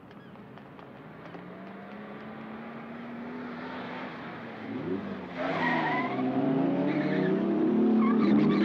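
Open sports car's engine revving as it accelerates, getting steadily louder, with tyres squealing about five seconds in and again as it swerves hard near the end.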